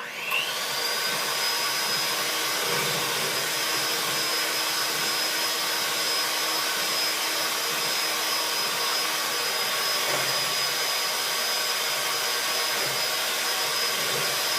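Electric mixer switched on and beating pancake batter: the motor spins up with a rising whine in the first half second, then runs at a steady speed.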